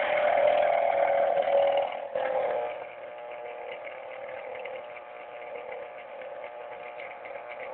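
Electric citrus juicer's motor whirring steadily as an orange half is pressed onto its spinning reamer. It is louder for the first two seconds or so, then settles to a quieter, even hum.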